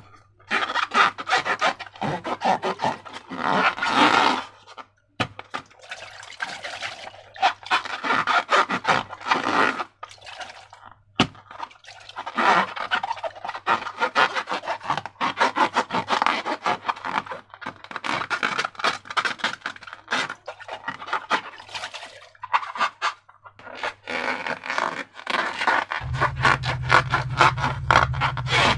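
Slime being worked close up: dense sticky crackling, squelching and scraping in spells with short pauses. A faint low hum runs underneath and gets louder near the end.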